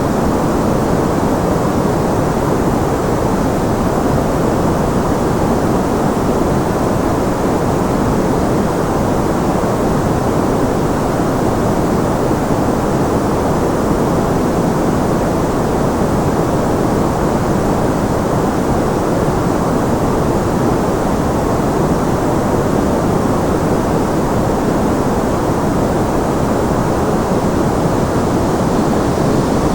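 Generated white noise for tinnitus masking: a steady, even rushing hiss, fuller in the low and middle range than in the treble.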